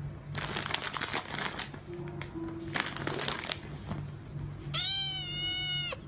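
A clear plastic bag crinkling and rustling under a hand in short bursts for about three seconds. Near the end a cat gives one long meow, a little over a second long, falling slightly in pitch at its close.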